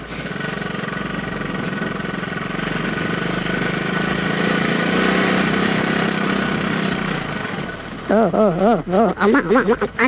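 Royal Enfield Classic 350 single-cylinder engine running steadily under way on a dirt track. It works a little harder towards the middle and eases off near the end, where a man's voice comes in over it.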